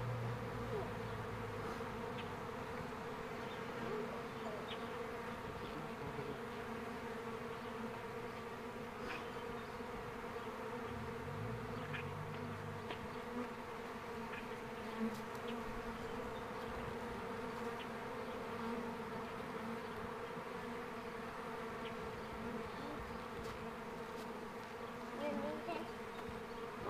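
Honeybees buzzing steadily around the entrance of a newly stocked hive: a continuous, even hum with overtones from many bees in flight.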